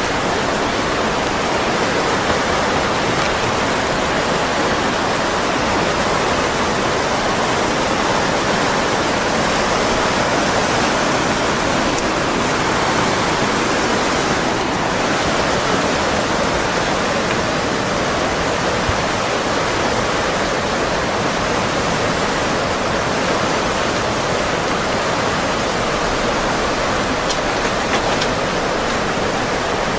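Steady loud rushing of tsunami floodwater, an even unbroken roar of moving water.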